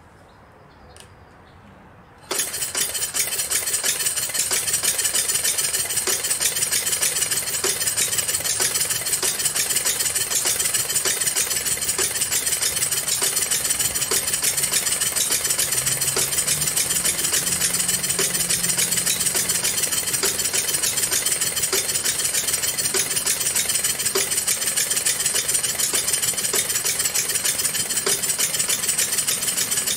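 Model Mery Explosive engine, a double-acting engine converted to run on coal gas, starting up and running at slow speed. It comes in suddenly about two seconds in and then holds a loud, steady, rapid clatter.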